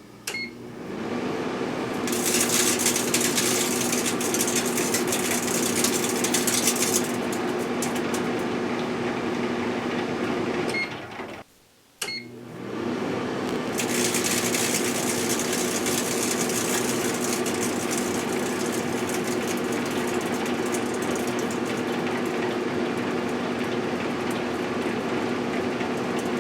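1978 GE Dual Wave microwave oven running with a steady hum, over a loud crackling, crinkling hiss from a big potato chip bag shrinking inside it. The oven cuts off a little before halfway and starts again for a second run.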